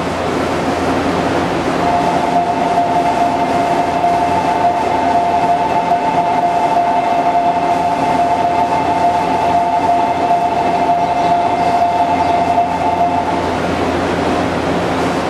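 Shinano Railway 115 series electric train standing at the platform, its onboard equipment running with a steady hum. From about two seconds in until near the end, a steady two-note electronic tone sounds over it, then stops.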